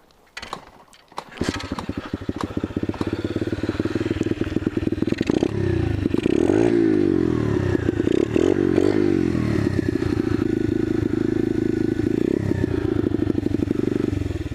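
Small dirt-bike engine, which comes in suddenly about a second and a half in and then runs loudly, its pitch rising and falling as it is revved and eased off through the middle, before it fades out at the end.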